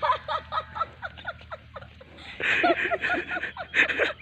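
People laughing in quick runs of short ha-ha syllables, louder and fuller from about halfway through.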